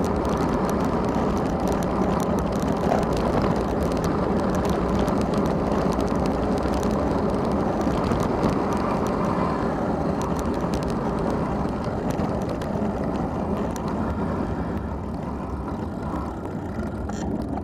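Steady rush of wind on a bike-mounted camera's microphone and tyre rumble as a bicycle rolls fast downhill over rough pavement, with small rattles and clicks. It eases slightly in the last few seconds.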